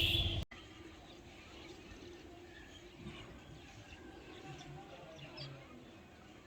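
A louder sound with a shrill high band cuts off abruptly about half a second in; after that, faint scattered bird chirps over a quiet outdoor background.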